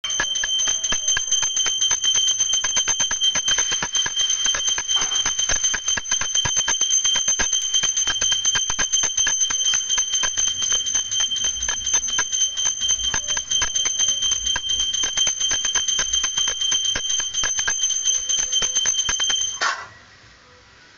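Puja bell ringing continuously, rapid clapper strikes over a steady high ring, stopping abruptly near the end.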